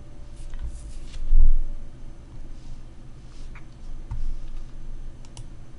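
A few scattered clicks of computer input devices, with a dull low thump about a second and a half in.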